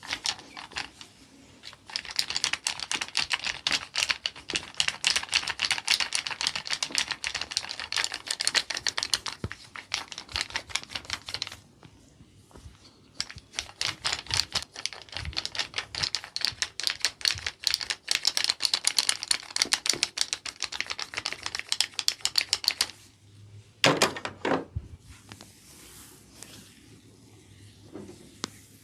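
Rapid percussive massage tapping on the body, a dense run of sharp clicks many times a second. It comes in two long runs with a short pause between, then two louder, duller strokes near the end.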